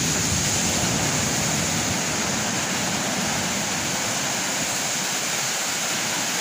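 Surf from strong waves breaking on the shore: a steady, even rushing noise.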